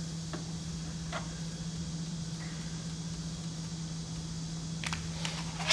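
A steady low hum with a few faint clicks and ticks from hand-screwdriver work, driving a small screw into the water heater's thin sheet-metal bracket.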